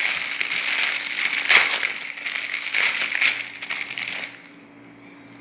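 Plastic wrapping crinkling and crackling as a fidget toy is unwrapped by hand, stopping suddenly about four seconds in.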